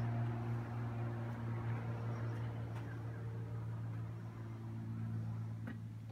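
A steady low machine hum with overtones above it, easing slightly in level after about four seconds, with a few faint clicks.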